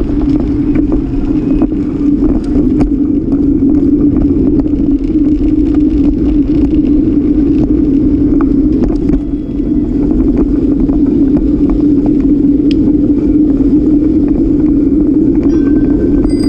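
Steady, loud rumble of wind and road noise picked up by a camera on a moving bicycle, with scattered small knocks as the bike rolls over the path and paving.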